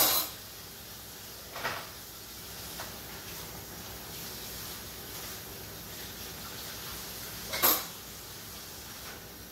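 Three sharp kitchen knocks from items being handled and set down at the counter: one at the start, a smaller one about two seconds in, and a louder one near the end, over a faint steady hiss.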